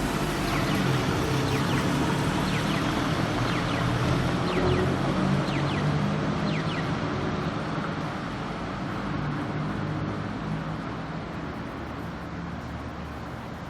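Street traffic at a crossroads, with engines idling and moving. Over it, a traffic light's pedestrian crossing signal gives short, high, chirping beeps that stop about halfway through.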